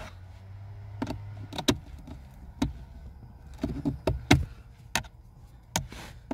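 Scattered clicks and knocks of a screwdriver being fitted into a slotted screw head and worked against the plastic blower motor housing under a car's dashboard.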